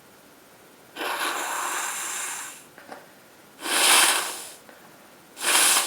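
Nose blowing into a handkerchief by someone with a cold: one long blow about a second in, then two shorter, louder blows.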